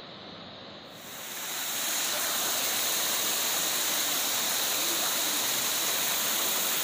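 Small mountain stream tumbling in little cascades over mossy rocks, a steady rush of water that swells up about a second in after a faint hiss.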